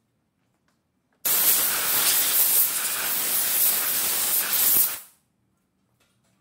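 Compressed-air blow gun hissing in one steady blast of about four seconds that starts and stops abruptly, blowing chips off freshly routed wood.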